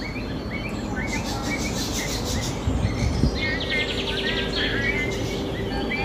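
A chorus of many birds chirping and calling at once, with bursts of fast trilled notes over steady background noise.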